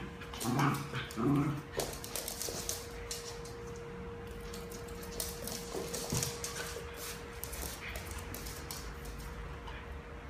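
Two small dogs play-fighting: two short vocal noises half a second apart near the start and another brief one about six seconds in, with scattered scuffles and clicks of claws on a laminate floor in between.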